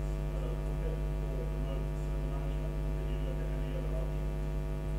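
Steady electrical mains hum picked up by the sound and recording system: a constant low buzz with many evenly spaced overtones.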